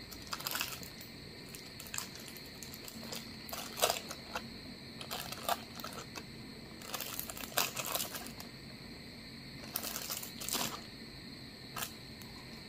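Small clear plastic zip bag crinkling and rustling in short irregular bursts as cucumber slices are taken out of it, with a few sharp clicks among them.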